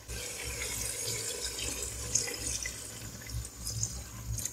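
Water poured from a glass into a hot pot of fried meat and potatoes, a continuous pouring and splashing into the oily gravy.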